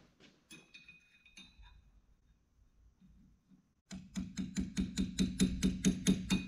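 Small hammer tapping a pin punch quickly and evenly, about seven light blows a second, each with a metallic ring, driving a roll pin through the hole in a Carraro transmission's drum into its shaft. A few faint metal clinks come first as the punch is set.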